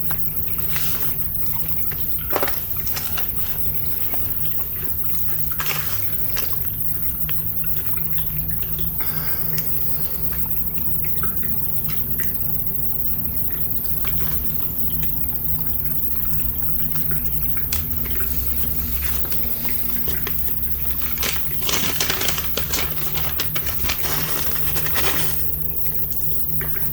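Light handling noises from the toy car kit's cardboard and plastic parts, scattered clicks and rustles over a steady low hum, with a denser patch of louder clattering about three quarters of the way through.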